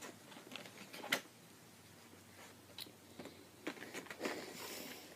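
Faint scattered clicks and taps of small plastic toy pieces being handled and set into a small plastic storage box, the loudest click about a second in, with a soft rustle near the end.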